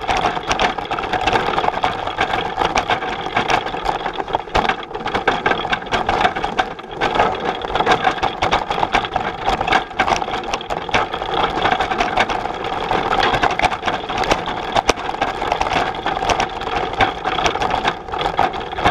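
Bullitt cargo bike rattling and clattering as it rides over a bumpy dirt trail, with many sharp knocks over a steady whir.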